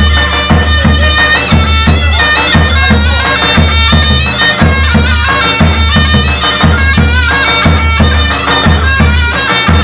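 Zurna playing a folk melody over the steady, deep beat of a davul bass drum.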